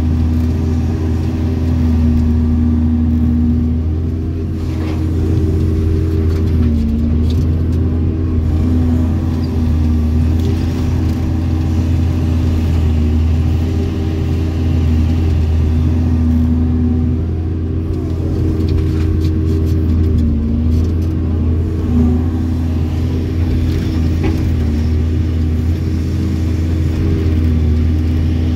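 Doosan excavator's diesel engine running steadily under working load, heard from inside the cab, as the arm and bucket dig into rocky soil. The engine note dips briefly a few times, and a few faint knocks come from stones in the bucket.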